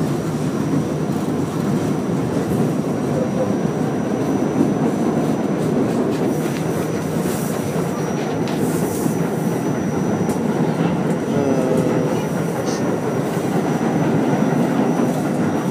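Staten Island Railway R44 subway car running along the line, heard from inside the car: a steady rumble of wheels on rail with a thin, steady high whine above it, and a few clacks over rail joints around the middle.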